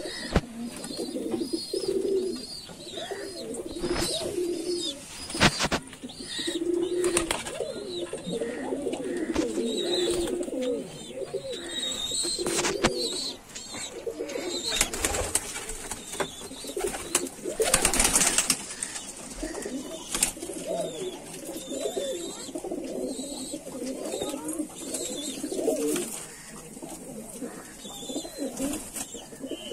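A flock of domestic pigeons cooing together, many low warbling coos overlapping without a break, with a few sharp knocks or clatters now and then.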